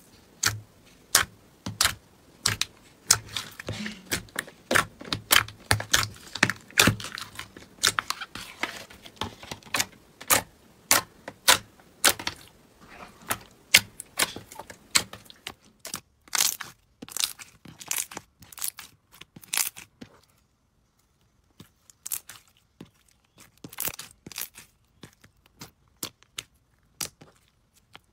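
Hands pressing, poking and stretching glossy slime: an irregular run of sharp, sticky clicks and small pops, several a second, with a brief silent break about two-thirds of the way through.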